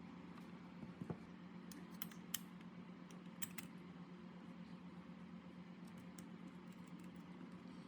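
A few faint, sharp clicks and taps, as of small hard parts being handled, over a low steady hum.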